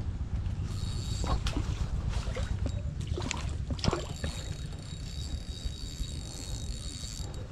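A hooked fish being reeled in on a spinning reel: the reel cranking, with a few sharp splashes as the fish thrashes at the surface, over a steady low wind rumble on the microphone.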